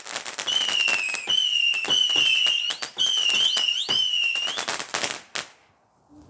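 Garden fireworks going off: a shrill whistle repeated in short runs with quick rising sweeps in pitch, over dense crackling and popping. It dies away about five seconds in.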